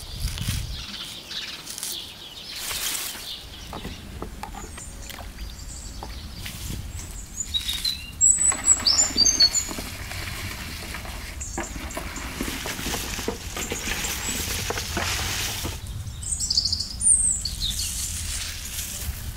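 Small birds chirping in quick clusters, loudest about eight seconds in and again near the end, over the crisp rustle and crunch of cabbage leaves being torn by hand into a metal tub.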